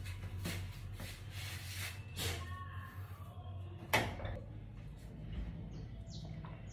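Household door being opened and pushed shut, with rustling handling noise and one sharp knock about four seconds in.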